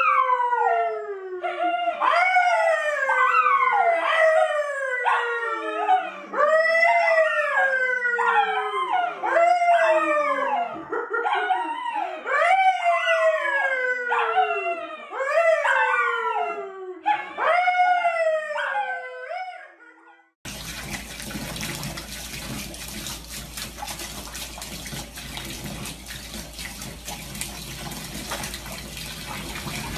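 A brown poodle and a man howling together in a run of about ten long howls, each rising briefly and then sliding down in pitch. About twenty seconds in this cuts off and gives way to a steady rush of tap water running into a bathtub.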